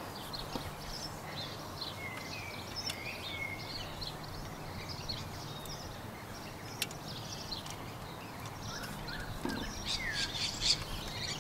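Birds chirping in short calls over a steady low background ambience, with a single sharp click about seven seconds in.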